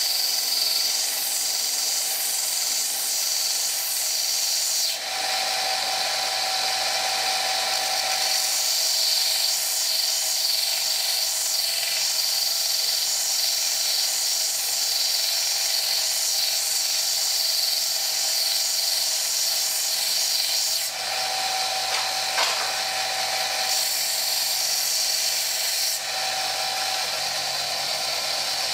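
Small stationary belt sander running, with a thin steel rod held against the belt to grind its end down: a steady high-pitched grinding hiss, with a ringing tone that comes and goes a few times.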